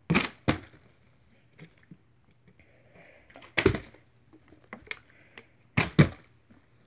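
A plastic water bottle being flipped onto a bed: several sudden thuds as it lands, some in quick pairs.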